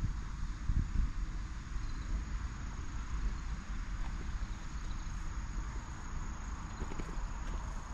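Outdoor summer ambience of insects chirring in a steady, high, unbroken drone, over a low uneven rumble.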